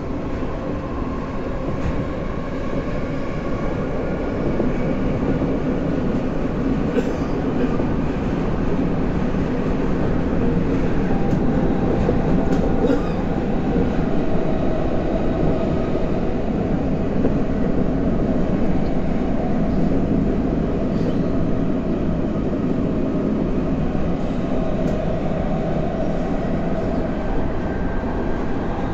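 Tokyo Metro Tozai Line subway train with permanent-magnet synchronous motors running through the tunnel, heard from inside the car. Steady wheel and running rumble with faint motor tones, getting louder over the first ten seconds or so and then holding steady, with a few short rail clicks.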